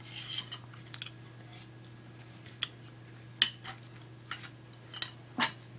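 Light clicks and small knocks of airsoft rifle parts being handled and fitted together during barrel reassembly, with a sharper knock about three and a half seconds in and another near the end, over a low steady hum.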